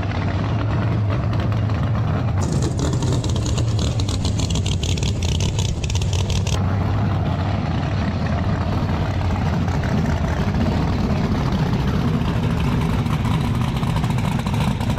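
Twin-turbocharged Pro Line race engine of a drag-racing Mustang running steadily at idle as the car creeps forward. A loud hiss joins in from about two seconds in to about six and a half.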